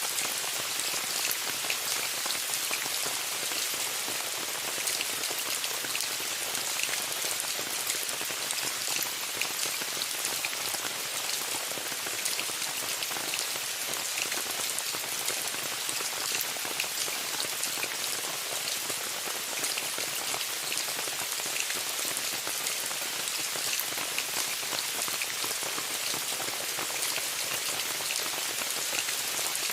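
Steady rain pattering on a tent's fabric, many small drop ticks over an even hiss.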